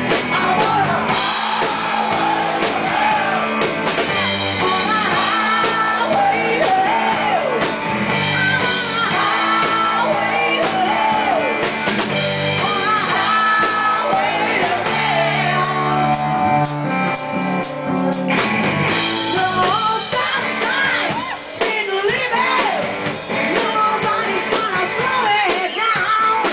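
Live rock band playing in a bar, with a lead vocal singing over guitar, bass and drums. The room's echo and some shouts are mixed in.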